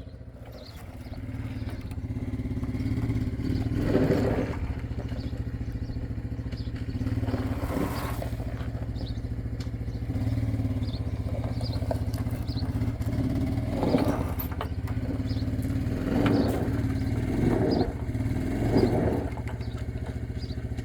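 Engine running steadily, with a few brief clanks and scrapes.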